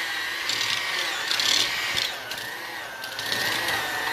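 Electric hand mixer running steadily, its beaters churning a thick cream cheese filling in a bowl; the motor's whine wavers slightly in pitch as it works through the mix.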